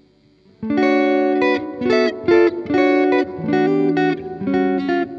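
Electric guitar played through a Strymon Cloudburst reverb pedal. A run of chords and single notes starts about half a second in, changing every half second or so, each ringing on with reverb.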